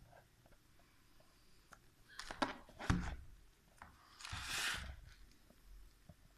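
Packaging being handled during an unboxing: a few knocks and clicks from the box about two to three seconds in, then a short rustling scrape about four seconds in.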